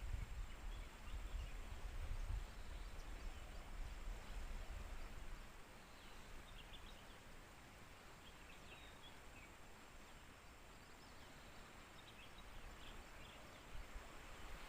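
Outdoor ambience by a river: a steady background hiss, with low rumbling that fades about five seconds in, and faint, scattered high chirps.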